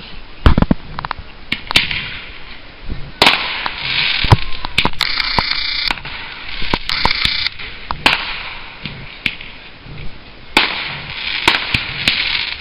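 Aerial fireworks bursting: sharp bangs and crackles at irregular intervals. The loudest bangs come about half a second, three seconds and four seconds in, and dense crackling hiss fills the middle few seconds.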